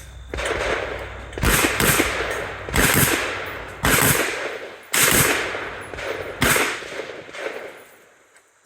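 A string of rifle shots, about six over five seconds, a few coming close together, each followed by a long echoing tail that fades before the next.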